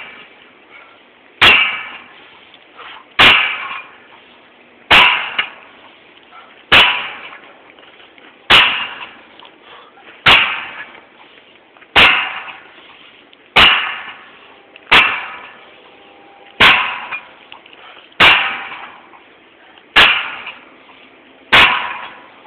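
Steel bead-breaking bar striking at the bead of a 23.5-25 loader tire on its steel rim, worked by hand to break the bead loose. There are about thirteen sharp metallic clangs at a steady pace of about one every 1.7 seconds, each ringing and dying away.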